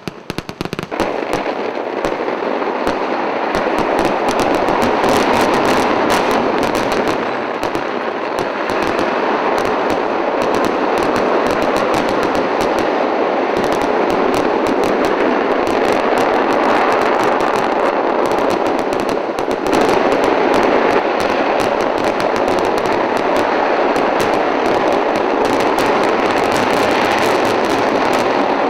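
Fireworks display: a dense, unbroken rapid chain of firecracker bangs and shell bursts, starting up about a second in and keeping a steady, loud pace.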